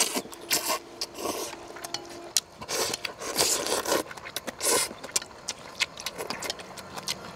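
Eating sounds: quick irregular clicks and short scrapes of chopsticks against a bowl.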